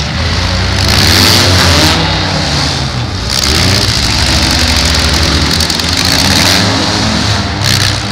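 Several demolition-derby compact cars' engines running and revving at once, loud, their pitch rising and falling.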